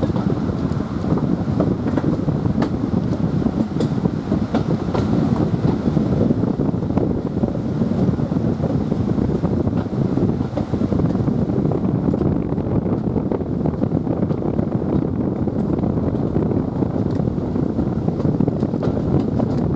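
Train running along the line, heard from the cab: a steady rumble from the engine and the wheels on the track, with wind buffeting the microphone and a few sharp clicks in the first half.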